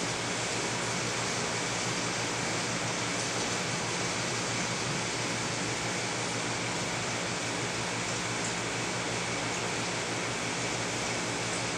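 Steady hiss of running water with a faint low hum from the aquarium's pumps and circulation, unchanging throughout.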